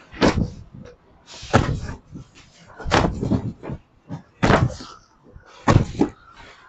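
Five heavy thumps, about one every second and a half, as bales wrapped in woven sacking are shoved and struck into place while a shipping container is packed to the roof.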